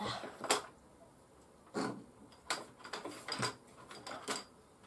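Rummaging in a plastic storage drawer unit: a string of separate light clicks and knocks as drawers and small plastic boxes are handled.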